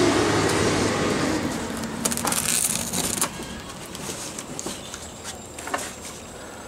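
Pocket knife slitting the plastic wrap and packing tape on a cardboard box, with crackling and scraping. It is densest about two to three seconds in, then scattered ticks and scratches as the blade works along the seam.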